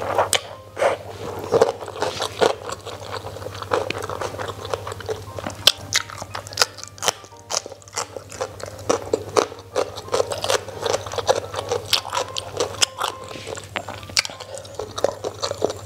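Close-miked chewing of a mouthful of rice and orek tempe eaten by hand, with many short crisp crunches and wet mouth clicks.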